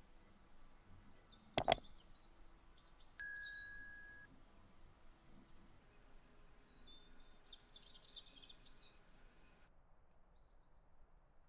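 A tiny metal spoon clicks twice in quick succession against a small metal plate. Faint high chirps follow, with a short steady beep-like tone a few seconds in.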